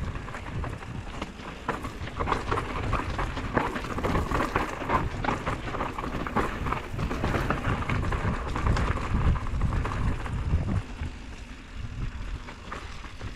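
Mountain bike descending a rocky dirt trail: tyres crunching and rattling over stones and loose dirt, with wind rumbling on the camera microphone.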